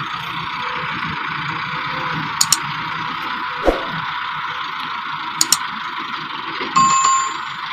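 Tractor diesel engine running steadily under an even hiss while a front loader tips sand into a trolley. Short clicks come in pairs about two and a half and five and a half seconds in, and a short chime sounds near the end.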